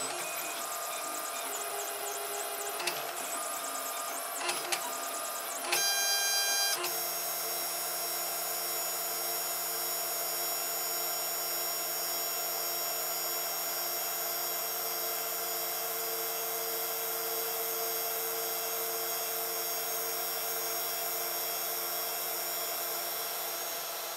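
FDM 3D printer (Protomaker Black Sprint) running: its stepper motors whine in changing pitches as the print head moves, with a few clicks and a louder burst of tones about six seconds in. After that it settles into a steady hum of several held tones.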